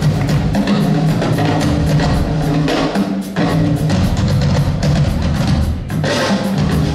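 Two drum kits played together in a live rock band: a dense run of rapid drum and cymbal hits over sustained bass notes, easing briefly about three seconds in and again near the end.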